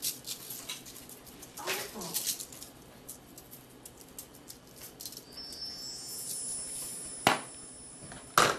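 Seasoning shaker being shaken over raw shrimp, a quick run of small rattling ticks, followed by two sharp knocks near the end. A faint high steady tone comes in about five seconds in.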